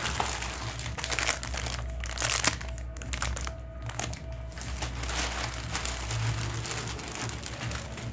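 Thin clear plastic shipping bag crinkling and rustling in irregular bursts as it is handled and items are pulled out of it.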